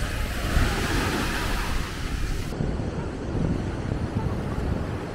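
Black Sea surf breaking and washing up a sandy shore, with wind rumbling on the microphone. About halfway through, the hiss of the surf drops away suddenly, leaving mostly wind rumble with the waves further off.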